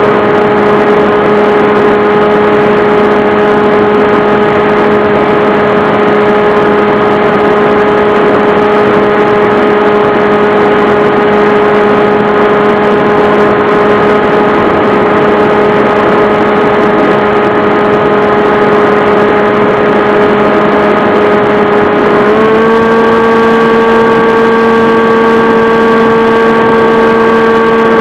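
Radio-controlled model aircraft's motor and propeller heard close up from the onboard camera, a loud steady drone at constant throttle. Its pitch steps up slightly near the end as the throttle is opened a little.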